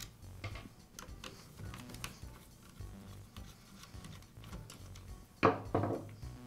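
Light clicks and ticks of a screwdriver backing out small screws from a circular saw's plastic handle housing, with a few louder clatters of the plastic parts being handled about five and a half seconds in.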